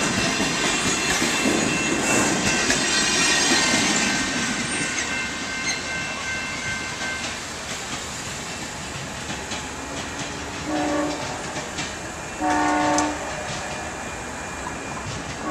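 Amtrak bi-level passenger cars rolling past with wheels clicking over the rail joints, the noise fading over the first few seconds as the train pulls away. Near the end the distant P42DC locomotive sounds its horn, a short blast then a longer one, a horn the uploader tags as a fouled K5LA.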